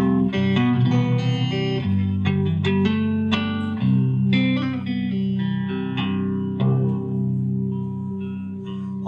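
Live guitar music: a run of quickly picked guitar notes over held low bass notes, with no singing yet.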